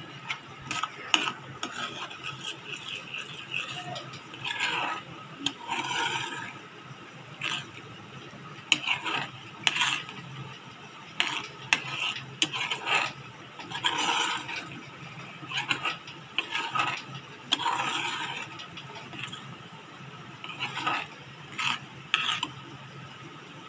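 Steel ladle stirring in a stainless-steel pan, clinking and scraping against its bottom and sides in irregular strokes.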